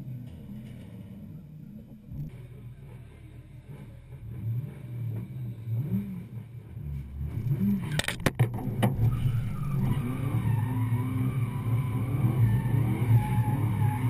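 Toyota Supra drift car's engine ticking over with a few short revs, then a handful of sharp knocks about eight seconds in, after which the engine runs loud and steady under load while the tyres squeal in a drift.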